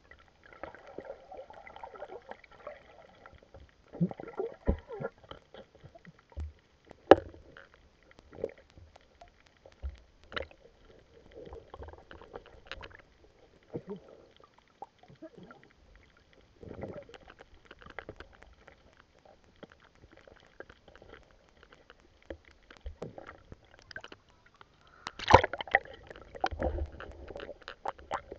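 Muffled water sloshing and gurgling around an underwater camera, with irregular knocks and clicks; a louder cluster of knocks near the end.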